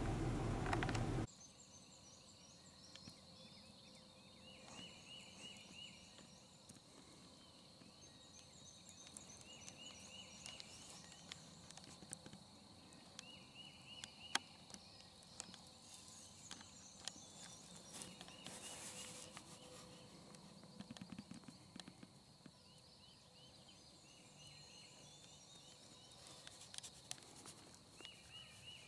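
A vehicle engine idling for about the first second, cut off abruptly, then dawn woodland birdsong: a songbird repeating a short trilled phrase every two to three seconds, other birds singing higher, over a steady high-pitched hum and scattered small clicks.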